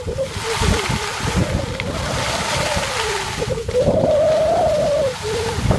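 A high voice holding a wavering, drawn-out humming tune that dips and rises, loudest in the second half, over wind buffeting the microphone and the hiss of skis sliding on snow.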